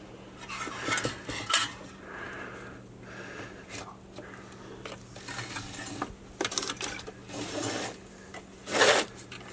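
Wire retrieval hook and nylon starter rope scraping and clicking against a small engine's recoil starter housing as the rope is fished through its hole: irregular clinks and rubbing, with a louder clatter near the end.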